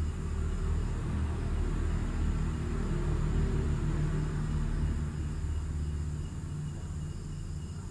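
Low background rumble with a faint steady hum, a little louder through the first five seconds and then easing off.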